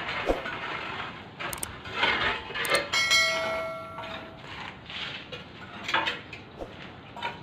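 A bell chime rings about three seconds in and dies away after about a second, after a few sharp clicks. This is the notification-bell sound effect of a subscribe-button animation.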